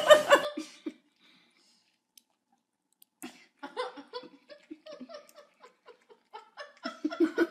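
A person laughing and giggling softly in short, broken bursts. It starts after a brief silence about three seconds in and grows louder near the end.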